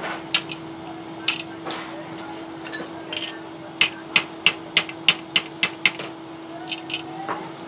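Hand hammer striking hot steel on an anvil. A few spaced blows, then a quick run of about eight at roughly three a second, then a few lighter taps near the end, over a steady low hum.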